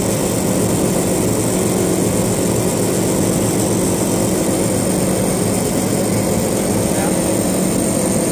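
A bulk feed truck's machinery running steadily: a constant engine drone with a fixed hum that does not change in pitch or loudness.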